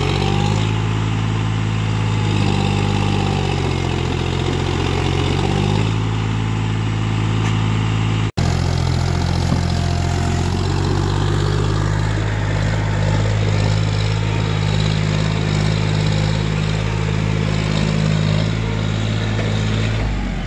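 Tractor's diesel engine running hard under heavy load as it hauls a trailer up a steep, rocky slope with its front wheels lifting off the ground. Its pitch steps up and down several times as the driver works the throttle.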